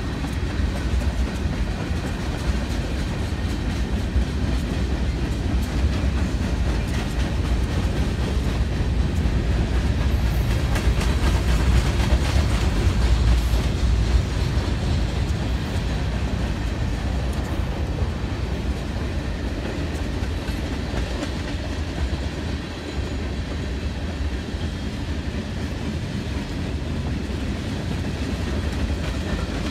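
Freight train of covered hoppers and tank cars rolling past close by: a steady low rumble of steel wheels on rail, with clickety-clack and a few sharp clicks over the rail joints, loudest about midway.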